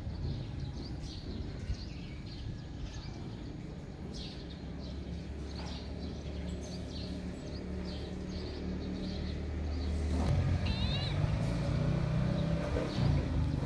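Outdoor ambience: a steady low engine hum from a motor vehicle that grows louder about ten seconds in, with small birds chirping now and then.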